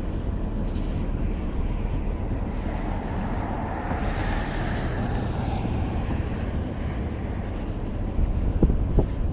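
Wind buffeting the microphone with a steady low rumble, a louder rushing swell rising and fading about four to six seconds in, and a few knocks near the end.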